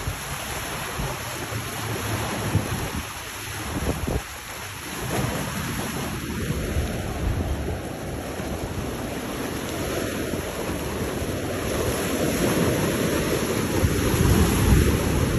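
Wind buffeting the microphone over rough, choppy water: a steady rush with a heavy low rumble that grows louder near the end.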